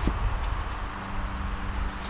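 A light wooden knock right at the start as a round walnut slab is handled on the stack, over a steady low rumble with a faint hum.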